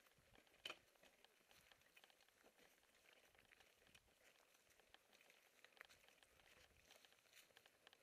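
Faint ticks and rattles of a mountain bike rolling over rocky dirt singletrack, with one sharper click just under a second in.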